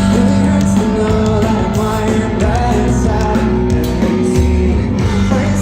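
A pop-punk band playing live: a singer over electric guitars, bass and drums, loud and full throughout.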